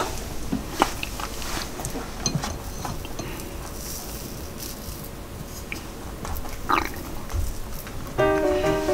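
A fork cutting into a soft slice of cheesecake on a glass plate, with a few faint clicks and scrapes. Background music starts near the end.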